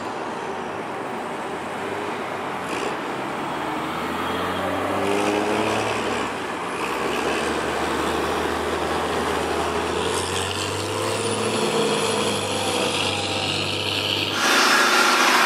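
Garbage truck's diesel engine pulling away through traffic, its pitch rising twice as it accelerates through the gears. Just before the end a different, louder truck sound cuts in suddenly.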